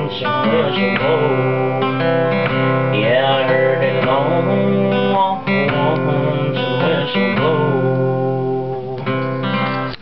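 Cutaway acoustic guitar strummed with a pick, playing the closing chords of a country song after its last sung line.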